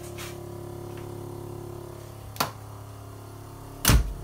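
Electric vacuum compressor of an electric-converted Jaguar XJ6 running with a steady hum. Two sharp knocks cut across it, one about two and a half seconds in and a louder one near the end.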